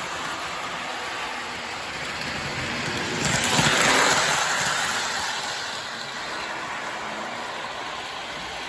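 Model electric passenger train in New Haven livery running on the layout track, a steady rolling rattle of wheels and motor. It grows loudest as it passes close about three and a half seconds in, then fades as it moves away.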